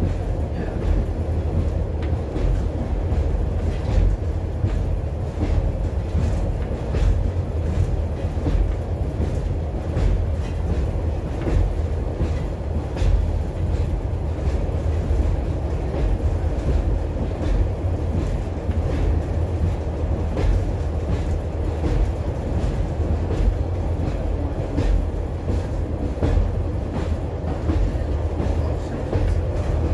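Inside a moving British Rail Class 142 Pacer railbus: a steady low rumble from the running unit, with frequent irregular clicks and knocks from the wheels on the track.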